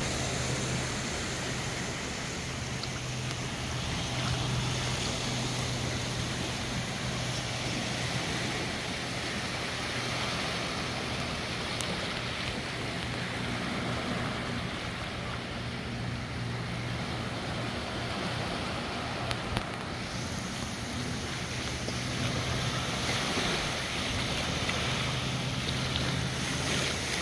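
Small waves washing onto a sandy beach, with wind on the microphone and a steady low drone underneath.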